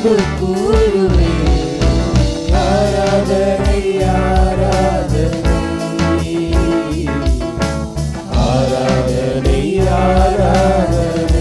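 Live band playing a Tamil worship song: a man sings lead into a microphone over keyboard, electric guitar and percussion keeping a steady beat.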